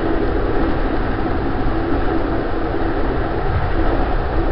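A train running: a steady low rumble with a constant droning hum over it.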